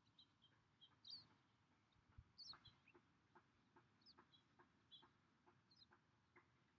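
Near silence with faint, high bird chirps scattered throughout, and a run of faint short repeated notes about two or three a second in the second half.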